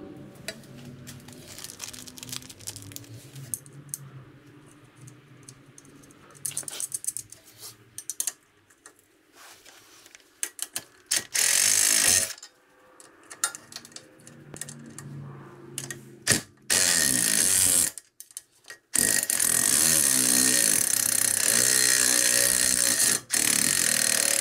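Light clinks of parts being handled, then a Milwaukee cordless impact driver with a socket running in several bursts, the longest about four seconds near the end, as it runs down the backing-plate bolts on a Jeep Cherokee XJ rear axle.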